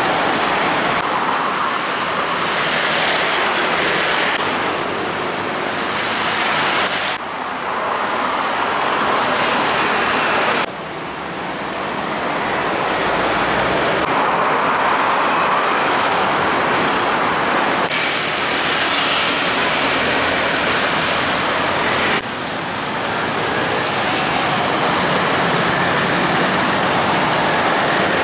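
Steady road traffic noise from passing vehicles, changing abruptly several times.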